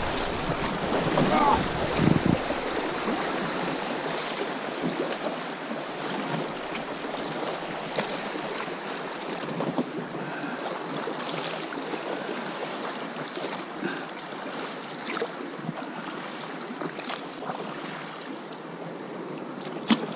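Fast shallow river riffle rushing and splashing around an inflatable PVC boat, with a few brief splashes scattered through. Wind buffets the microphone for the first couple of seconds.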